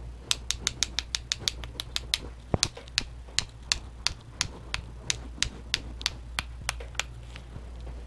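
A loaded watercolour paintbrush being tapped against a pencil to flick paint splatter onto the paper: sharp wooden clicks, quick at first, about six or seven a second, then slowing to about three a second until they stop near the end.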